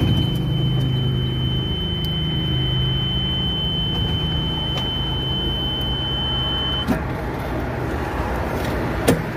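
A car's engine running close by as it pulls slowly past, with a steady low hum and road noise. A thin, steady high-pitched tone runs alongside and cuts off suddenly about seven seconds in. Two sharp clicks follow near the end.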